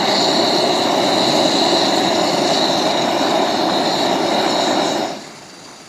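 Portable backpacking stove burner running at full flame with a steady, pretty loud hissing rush and a high whistle, just after the water has come to the boil. It is shut off about five seconds in, and the sound dies away quickly.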